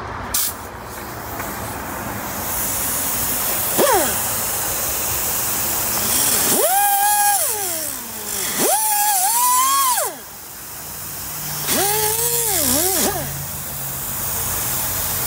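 Pneumatic cut-off tool whining in three bursts of about a second and a half each, its pitch sagging as it bites into the metal gutter-guard mesh, over the hiss of the tool's air.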